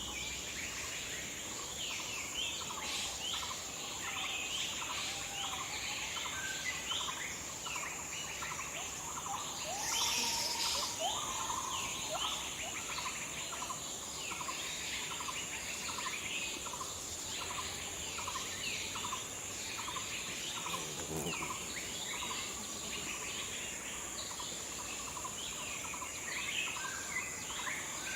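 Several birds chirping and calling over one another, over a steady high insect drone. Partway through, one bird repeats the same short call evenly, about twice a second.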